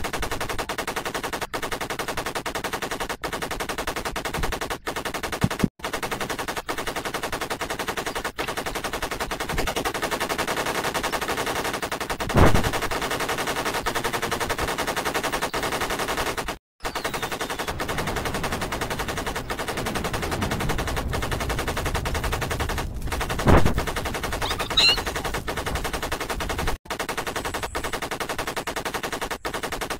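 Continuous rapid machine-gun fire, a dubbed sound effect for a toy gun, running in long bursts with a few short breaks. Two louder bangs stand out, about twelve seconds in and again near twenty-four seconds.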